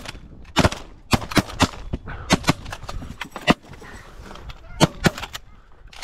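A volley of shotgun fire from several hunters shooting at Canada geese: about a dozen shots in quick, ragged clusters, trailing off about five seconds in.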